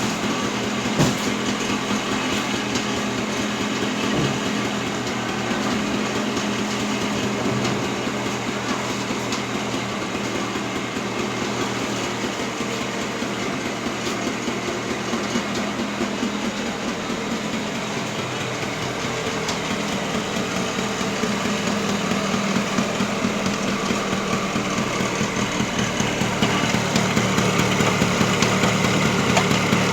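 Motor scooter engine running steadily under way, with road and wind noise; it grows louder near the end.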